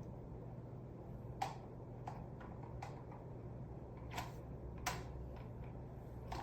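A few faint, irregular clicks and light taps, about seven in all and spaced unevenly, over a steady low hum.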